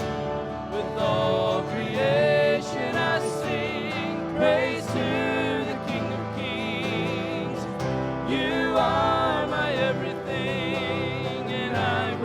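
Live church worship band music: an unsung passage of sustained chords, with a lead melody line wavering in pitch over them.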